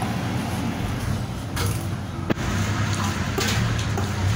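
Steady low hum of an engine running, with three sharp knocks of a cleaver on a wooden cutting board, the strongest about halfway through.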